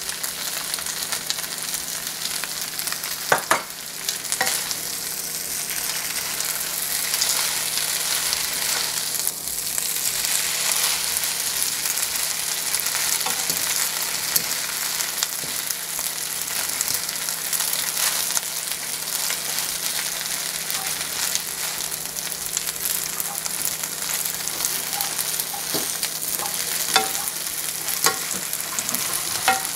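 Pad thai rice noodles, tofu and garlic chives sizzling in a hot nonstick wok, with a steady hiss while a spatula and fork toss and scrape them. A few sharp clacks of the utensils on the pan, one about three seconds in and a couple near the end.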